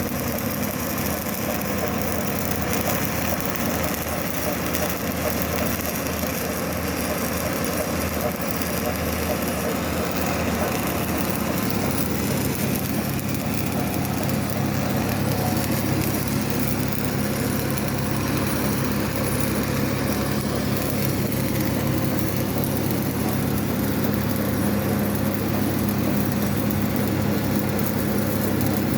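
Stick welding arc crackling and hissing steadily, over a steady low hum.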